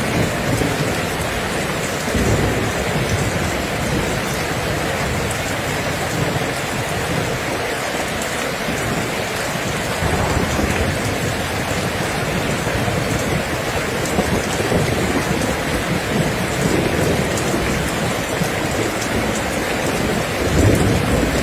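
Steady heavy rain falling, with low rolls of thunder underneath, one swelling near the end.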